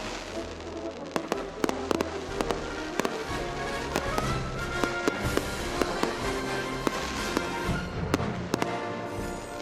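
Fireworks going off in irregular sharp bangs and pops, over music with held tones.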